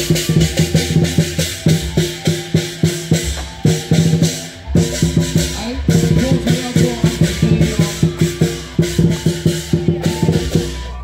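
Loud music with a quick, steady beat of percussion over held, pitched notes, briefly easing off about halfway through.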